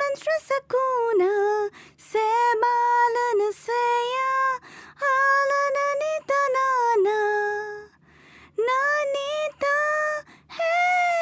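High female voice singing a slow melody in long held notes, phrase after phrase with short breaths between, over a faint low steady hum.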